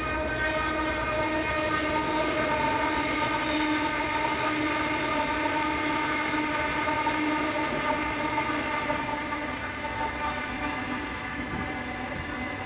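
A steady mechanical drone made of several even pitched tones over a low rumble, easing off after about nine seconds.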